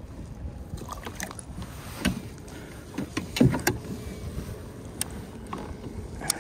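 Scattered knocks and clicks of gear and hands against a plastic fishing kayak, over a steady low background noise; the loudest knocks come about three and a half seconds in.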